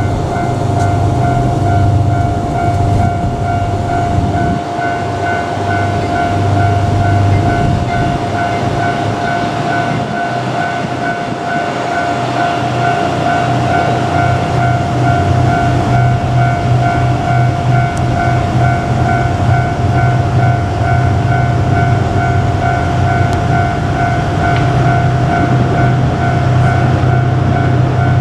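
Diesel-hauled Seven Stars cruise train, drawn by a DF200-7000 diesel-electric locomotive, running on the track. Its engine drones steadily, with a constant high tone over it.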